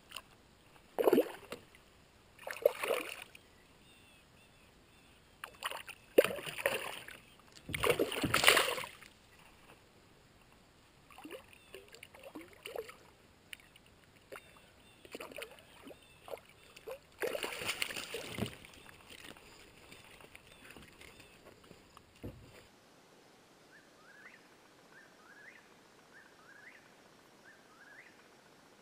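A hooked trout splashing at the water's surface beside a landing net, in several loud bursts over the first twenty seconds or so. After that it is quiet apart from faint, short rising chirps repeating about once a second.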